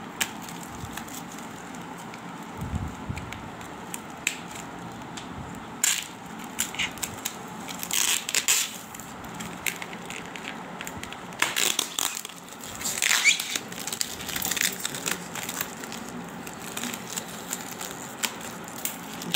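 Clear plastic stretch wrap crinkling and crackling as it is cut with scissors and pulled away from foam packing blocks. The crackles come in irregular bursts, with louder rustles around a third and two thirds of the way through.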